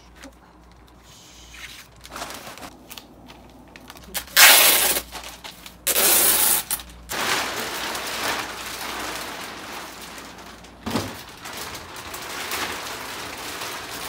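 Large plastic moving bag rustling and crackling as it is cut with scissors and then lifted and shaken out. The two loudest bursts of crinkling come about four and six seconds in, followed by steadier rustling.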